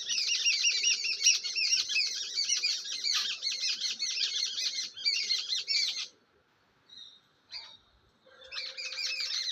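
Birds chirping in a fast, dense chatter of short high notes. The chatter stops about six seconds in, then comes back in a short burst near the end.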